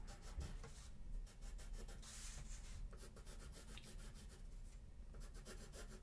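Pencil scratching on paper as straight lines are drawn freehand, in a run of short strokes with one longer, louder stroke about two seconds in.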